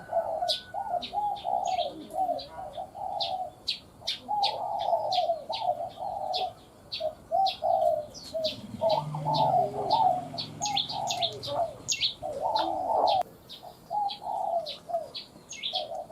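Spotted dove cooing in repeated phrases, the thin, narrow-voiced 'còi' type of call used as a trapping lure. Another small bird chirps rapidly and high-pitched alongside, several times a second.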